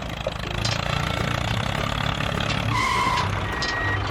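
Vehicle engine running steadily. About two-thirds of the way in, a reversing alarm starts beeping in repeated tones.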